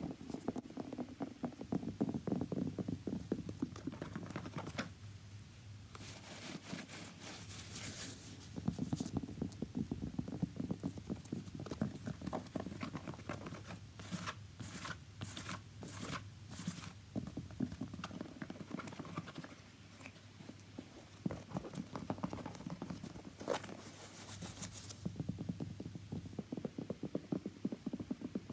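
Rapid, continuous tapping on a shoe, close up, broken by a few stretches of brighter scratching on it: about a third of the way in, around the middle, and again later on.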